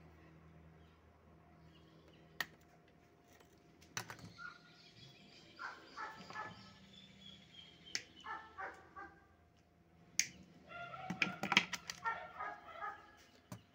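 Runs of short animal calls in the background, sparse at first and busier in the last few seconds, with several sharp clicks scattered through.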